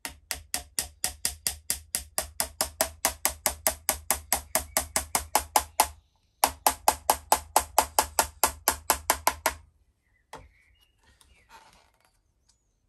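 Small hammer lightly tapping a tenon pin into the wooden stock of a muzzleloading long rifle, pinning the barrel back in place. About five quick, even taps a second, with a short break about six seconds in, then a second run that stops nearly ten seconds in.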